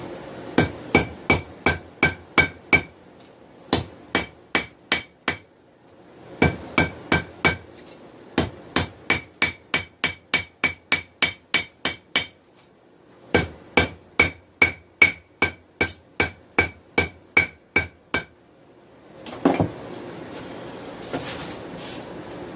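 Hand hammer striking hot 416 stainless steel on an anvil while drawing out a taper, at about three to four blows a second. The blows come in five runs with short pauses between them, and each one carries a clear metallic ring from the anvil. A single duller knock comes near the end.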